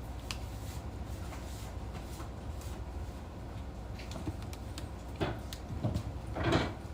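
Kitchen handling sounds over a low steady hum: scattered light clicks, then a few knocks from about five seconds in, the loudest a short clunk near the end.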